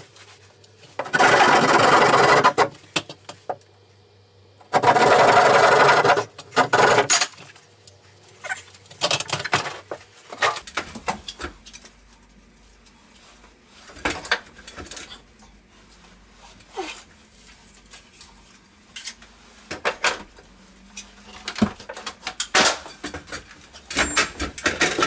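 Hand drywall saw rasping through gypsum ceiling board in two bursts of rapid sawing near the start, cutting a round hole for a recessed light. After that come scattered light knocks and clicks of handling.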